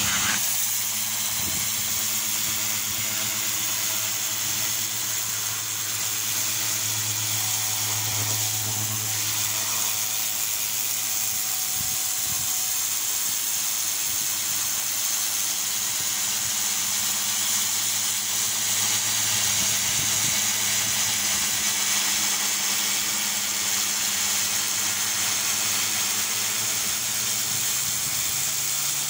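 Pressure washer running steadily, its jet hissing against a stone wall over the low, even hum of the pump.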